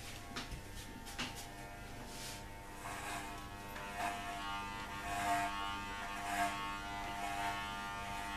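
Corded electric hair clippers buzzing steadily as they cut a man's hair, the buzz swelling briefly a few times as the blades are worked over the head. A few light clicks in the first second or so.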